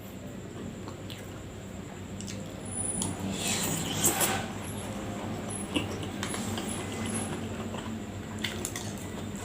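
A person chewing food close to the microphone: wet, squishy mouth sounds with a few short clicks. A louder, noisier stretch comes about three to four seconds in.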